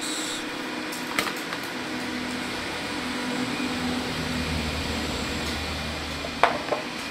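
Steady low mechanical hum, like a fan or air conditioner running, that swells in the middle, with a few sharp clicks: one about a second in and two close together near the end.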